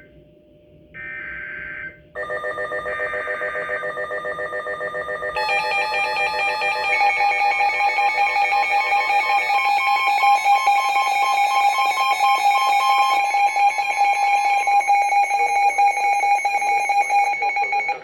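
NOAA Weather Radio emergency alert for a flood warning: a final burst of the buzzy SAME digital header data, then a weather radio's alarm of several layered, pulsing electronic beeps. More tones join about five seconds in, and the alarm cuts off abruptly near the end.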